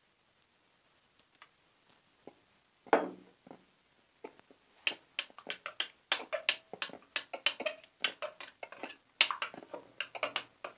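Runny glue-and-detergent slime being worked and stirred, giving quick, irregular wet sticky squelches and smacks that come thick and fast from about five seconds in. The slime is still too runny at this stage.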